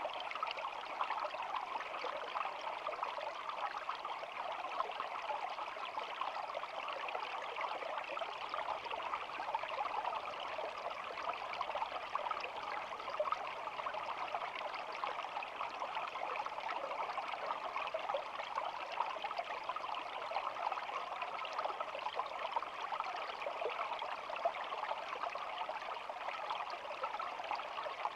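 Small shallow stream flowing steadily: an even babble of water made of many tiny trickles and splashes, with no pause or change.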